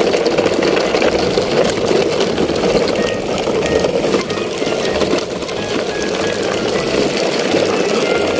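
Plastic wheels of a convoy of handmade toy trucks rolling over rough asphalt as the trucks are pulled along on a string, a steady rattling grind. Faint short musical notes come in about three seconds in.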